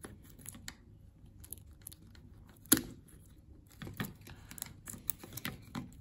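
Small clicks and light rustling of tweezers and fingers working a flex ribbon cable out of a Samsung Galaxy Fold 3's hinge. One sharper click comes about three seconds in, and a run of clicks follows near the end.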